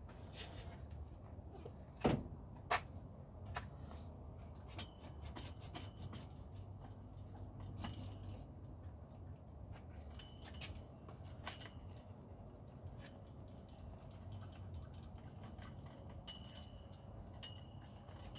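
Hands and small tools working at a windshield on its stand: sharp clicks and light metallic clinks. There are two loud clicks about two seconds in, a quick run of clicks around five to six seconds, and scattered lighter ticks after that.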